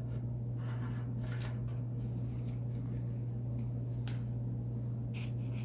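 A steady low hum, with faint rustles and soft taps of handling as a cloth cap is picked up and put on.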